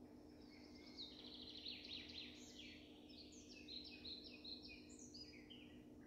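A small songbird singing faintly: one high, varied phrase that opens with a rapid trill and goes on in a run of short falling notes, stopping about half a second before the end. A steady low hum runs underneath.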